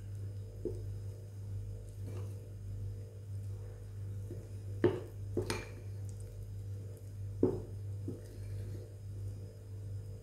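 Flour and water being mixed and kneaded into dough in a bowl, with several sharp knocks against the bowl, the loudest a pair about five seconds in and one about seven and a half seconds in. A steady low hum runs underneath.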